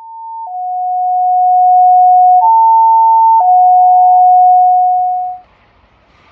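Fire dispatch two-tone alert tones: two steady pure pitches, a higher one then a longer lower one, played twice. They fade up over the first couple of seconds and cut off sharply a little past five seconds in.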